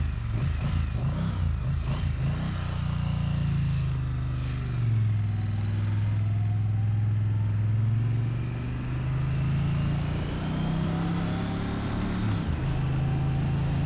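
2022 Triumph Bonneville T100's 900cc parallel-twin engine pulling away and running at low road speed. Its pitch climbs and drops suddenly twice, at upshifts, about a third of the way in and near the end.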